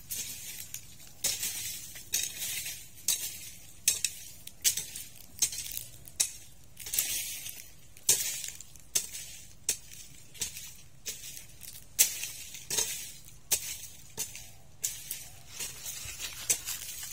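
Rustling and crackling of leaves and twigs: irregular sharp ticks, about one or two a second, over a faint high hiss.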